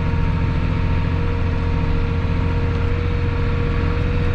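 Tractor engine running steadily under a constant drone with a fixed pitch.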